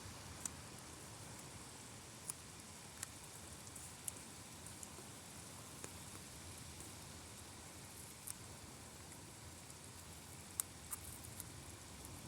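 Heavy thunderstorm rain falling as a faint, steady hiss, with scattered sharp ticks every second or two.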